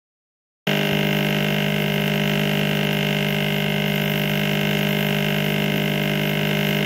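Quick-N-EZ vibratory case tumbler running, shaking brass cartridge cases in cleaning media to clean them: a loud, steady hum that cuts in suddenly about a second in and stops abruptly at the end.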